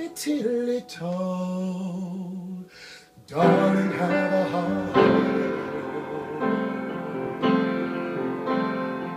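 A man sings a live vocal line, bending and holding his notes, to upright piano accompaniment. After a brief pause about three seconds in, the piano comes back in with chords struck roughly every second or so.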